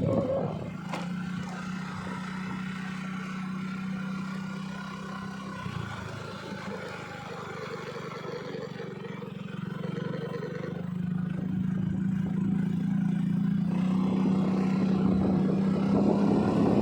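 An engine running at a fairly steady pitch, fading somewhat in the middle and growing louder near the end.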